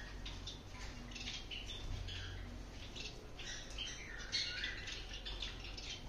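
Small cage birds chirping and calling, many short scattered chirps with a few brief falling calls.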